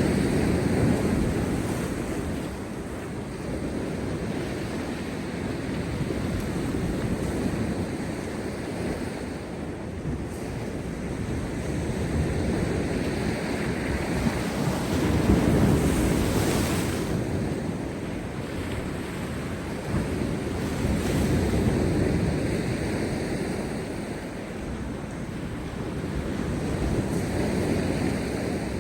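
Large storm-driven sea waves breaking and crashing on rocks, in repeated surges several seconds apart, the strongest about halfway through, with wind on the microphone.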